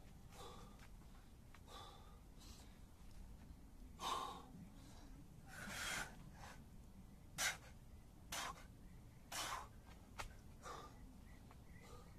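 A man breathing hard from exertion: a string of short, hissing breaths about one every second or so, the loudest near the middle.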